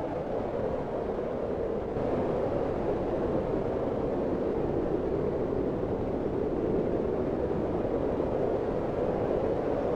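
Blizzard wind blowing as a steady, dense rushing noise, pitched fairly low, that grows a little louder about two seconds in.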